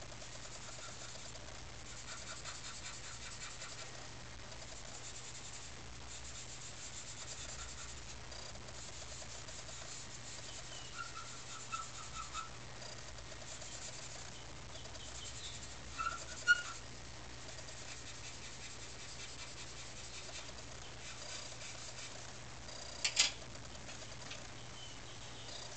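6B charcoal pencil scratching and rubbing over drawing paper in short strokes. A sharp tap comes a little past halfway, and a louder one near the end.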